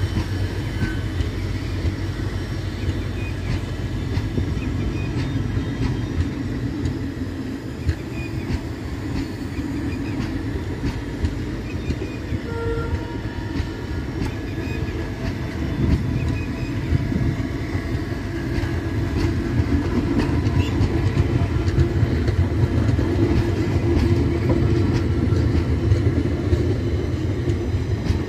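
ICF passenger coaches of an express train rolling past: a steady low rumble with the clicks of wheels running over rail joints, growing a little louder near the end.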